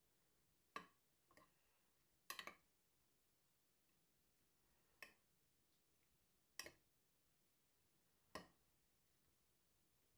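Metal spoon clinking against a glass dish while tossing macaroni salad: faint, sharp clicks at irregular intervals, about six in all, one of them a quick double.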